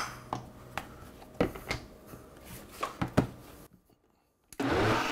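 A few light knocks and clicks of a plastic measuring cup and blender jar being handled, then near the end a Vitamix blender motor starts and runs steadily, blending a thick pepper-and-beet mash.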